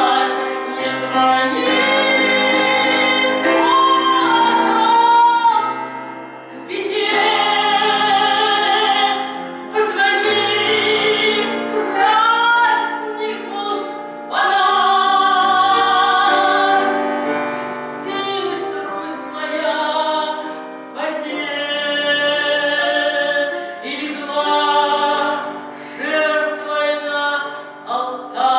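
A woman singing a slow Russian spiritual song in long phrases, her held notes wavering with vibrato, over sustained musical accompaniment.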